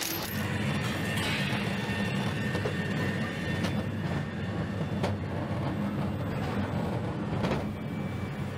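Steady low machine rumble on a truck assembly line, with a few faint clicks.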